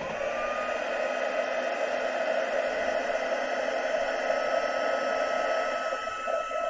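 Heat embossing tool switched on and blowing hot air to melt embossing powder. Its fan motor whines up to speed within about the first second, then runs steadily with a high whine over a rushing hiss.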